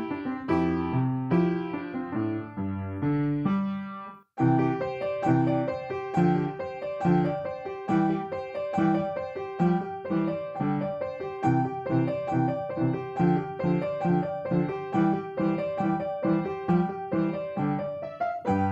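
Piano music. About four seconds in it dies away to a brief silence, then a new passage of evenly paced notes begins.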